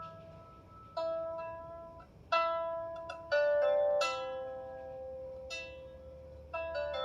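16-string lyre harp being plucked: about six separate notes and note pairs, each starting sharply and ringing on long after, in a slow unhurried run.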